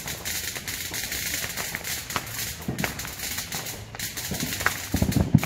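Distant fireworks going off: a few sharp pops and low booms, with the loudest cluster of thuds about five seconds in, over a steady high hiss.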